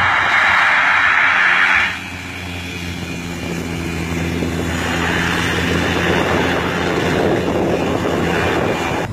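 Agricultural topdressing plane's propeller engine at full power on a takeoff run, a loud rushing roar that cuts off abruptly about two seconds in. Then a second topdressing plane's propeller engine running with a steady low drone that grows louder toward the end.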